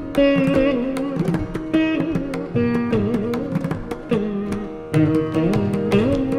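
Veena playing a Carnatic krithi in raga Khamas, plucked notes sliding and bending between pitches in gamakas, over frequent sharp hand-drum strokes.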